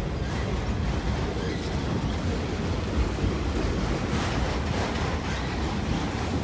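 Freight train of enclosed autorack cars rolling past at close range: a steady rumble of steel wheels on the rails.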